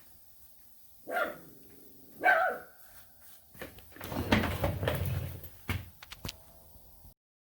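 Dog giving a few short barks in separate bursts, then a longer spell of vocalising, with a few sharp clicks near the end.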